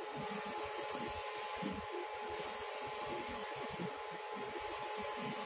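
GoldtechEco 5 ft eco-solvent wide-format printer running as it prints, a steady whir and hiss from the print-head carriage and feed, dipping briefly about every two seconds.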